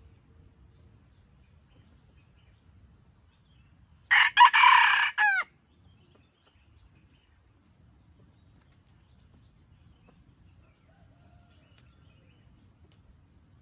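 A red junglefowl rooster crows once, a loud, short crow of a few clipped syllables lasting about a second and a half, the last notes falling off. Otherwise only faint background.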